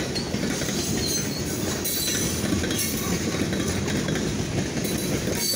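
Freight train boxcars rolling past at a road crossing, a steady rumble of wheels on rail.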